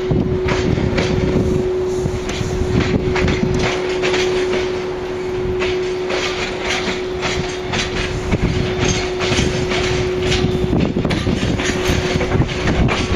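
Freight train running past: low rumble with repeated sharp clacks of wheels over the rail joints, and a steady tone that fades about eleven seconds in.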